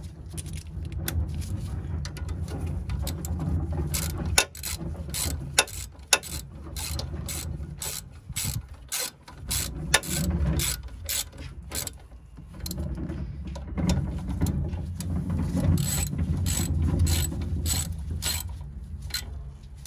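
Socket ratchet clicking in irregular runs as it turns and tightens the brake caliper bolts on a Ford Fiesta's front brake. A low rumble runs underneath.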